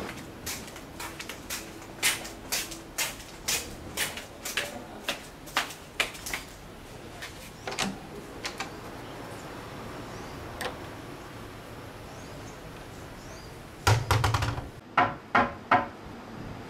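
Footsteps on a hard corridor floor, about two steps a second, thinning out after about six seconds. Near the end comes a heavy thump and a quick run of about five loud knocks on a door.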